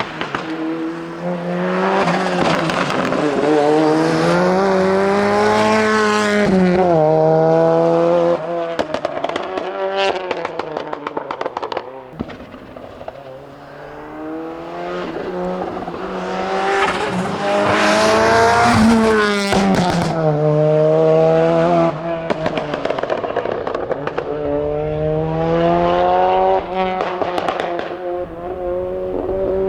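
Ford Sierra Cosworth rally car's turbocharged four-cylinder engine accelerating hard. The pitch climbs and drops back again and again as the driver shifts gears.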